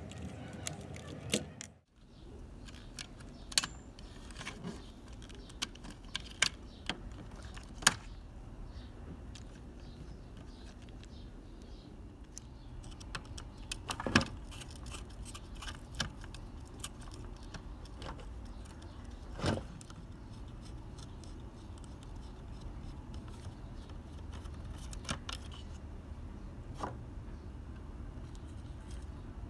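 Scattered sharp clicks and clinks of small metal parts and hand tools being handled, over a steady low background hum. The sound drops out briefly about two seconds in.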